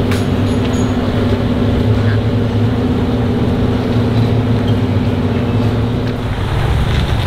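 An engine running steadily with a low hum, its tone shifting about six and a half seconds in.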